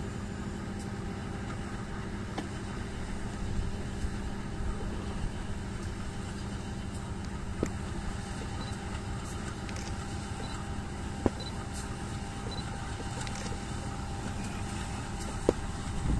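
Two CC204 diesel-electric locomotives running steadily as the train is shunted slowly backward: a continuous engine drone, with a few sharp clicks.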